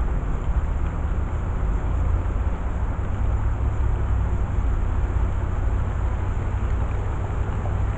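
Steady low rumble with a hiss over it, unbroken and unchanging.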